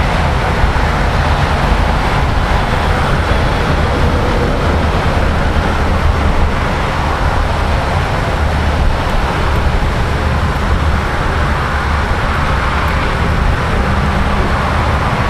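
Steady rushing noise of highway traffic on an interstate, with a heavy low rumble underneath.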